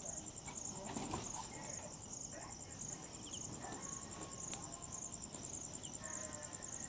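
Night insects, crickets, chirping in a steady chorus of rapid high-pitched pulses, with faint scattered ticks beneath.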